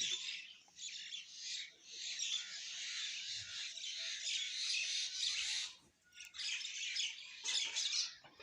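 Many small birds chirping and chattering together in a dense, continuous twitter, dropping out briefly about six seconds in and then resuming.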